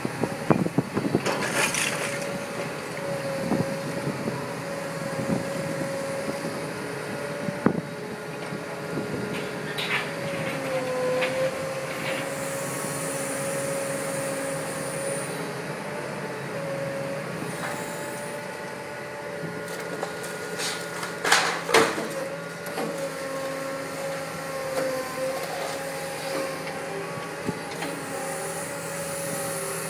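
Tracked demolition excavator with a hydraulic crusher attachment running steadily with a wavering whine, tearing into a brick building's roof. Sharp cracks and crashes of breaking timber and brick come at intervals, the loudest a few seconds past the middle.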